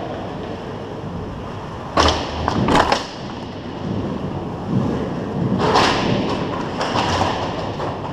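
Ice hockey play: skate blades scraping the ice over a steady echoing rink background, with sharp knocks of sticks and puck about two seconds in and again just before three seconds, and a longer scrape around six seconds.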